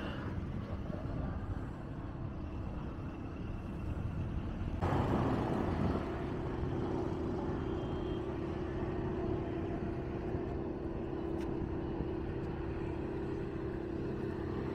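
Low, steady rumble of motor vehicles. About five seconds in a steady engine hum comes in and continues.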